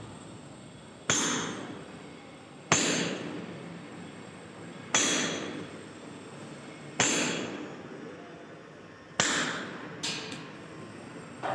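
Hand hammer blows against a ceiling, seven sharp strikes about every two seconds, each ringing briefly, with two quicker blows near the end. The ceiling is being hacked to make a base for paint.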